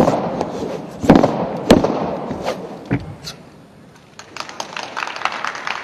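Wushu staff routine: a series of loud, sharp cracks and thuds that echo round a large hall, followed about four seconds in by a quicker run of lighter clicks.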